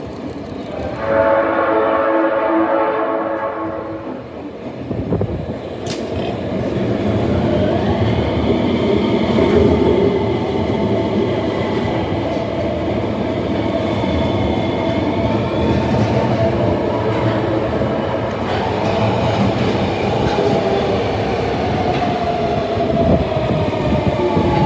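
Osaka Metro 20 series subway train sounding its horn for about three seconds as it approaches, then running through the underground station with loud wheel and rail noise and a high steady whine through the middle of the pass; near the end a lower tone falls in pitch.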